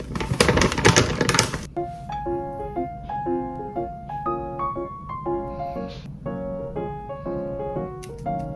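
A plastic bag of frying mix crinkles and rustles loudly for about a second and a half. It then cuts off and gives way to light background music of short, plinking keyboard notes.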